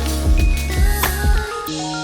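Background music: held melodic notes over a bass line with a drum beat that drops out about three-quarters of the way through, leaving only the sustained notes.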